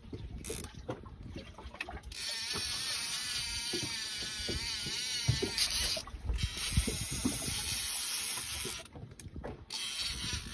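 Fishing reel running under load while a hooked dentex is fought: a continuous, high-pitched mechanical whirr that wavers in pitch, starting about two seconds in and lasting some seven seconds, then a shorter burst near the end, with low knocks from handling the rod.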